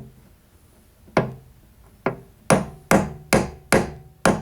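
Small hammer striking a metal punch on a mower deck spindle to straighten it, about eight sharp metallic taps with a short ring. They come singly at first, then settle into a steady run of about two and a half a second.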